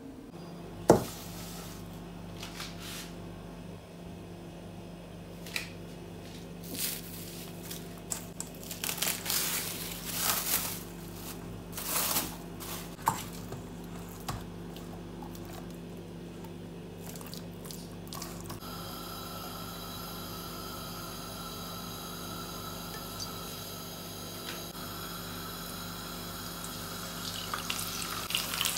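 Kitchen work sounds: a sharp click about a second in, then irregular splashing and handling noises with water. About two-thirds through, a steady hiss with a faint whine sets in, and frying starts to crackle at the very end.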